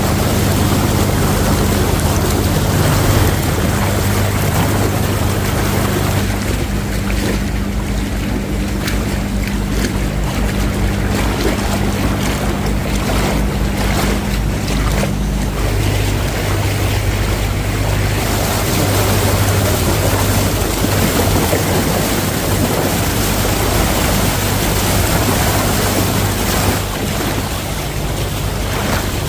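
Small boat's engine running steadily under loud wind buffeting the microphone and water rushing and splashing against the hull, with a choppy stretch of slaps from the waves in the middle.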